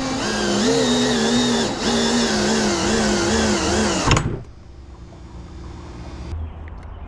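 Electric drill motor whining, its pitch wavering up and down as the speed changes, then stopping abruptly about four seconds in. A much quieter low hum follows.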